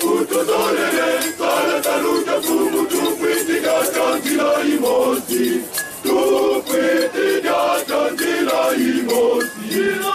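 Men's choir singing together in several voices, with hand-held rattles shaken in a steady beat.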